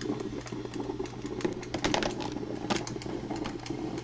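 Black & Decker thermal carafe drip coffee maker brewing: irregular sputtering and popping as the heater pumps the water up, over a steady low hum.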